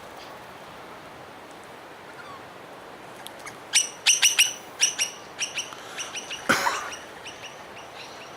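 Birds calling: a flurry of sharp, short, high chirps starts about three and a half seconds in and runs for roughly three seconds, ending with a longer harsher downward call.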